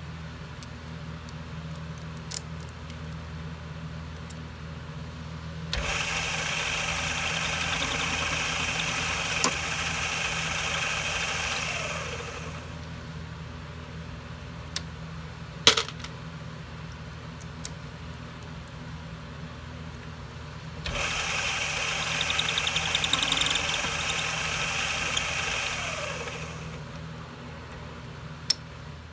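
A mini lathe trimming a spent 5.56 brass rifle case. It runs twice, for about six seconds and then about five, each time starting suddenly and winding down with a falling tone. Between the runs and at the ends come sharp metallic clicks and clinks as the case and chuck are handled, over a steady low hum.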